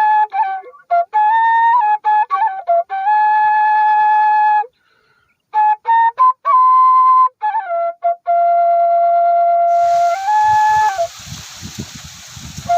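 Background music: a solo flute playing a slow melody of held notes. About ten seconds in, a rushing hiss with low, uneven rumbling comes in under it.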